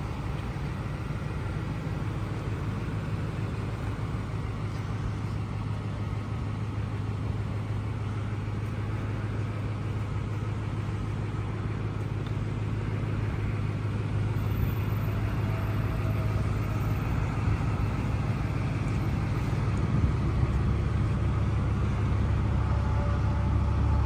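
Ford F-150 pickup's engine idling steadily with a low rumble, growing louder over the second half.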